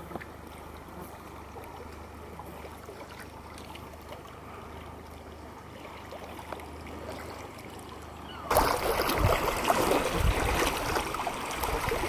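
Motorboat running on a lake: a steady low engine hum under the wash of water. About eight seconds in it jumps suddenly to much louder rushing water.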